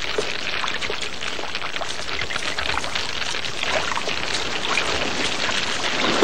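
A large troop of macaques running through shallow water and over wet shingle: a steady rush of splashing made of many small splashes.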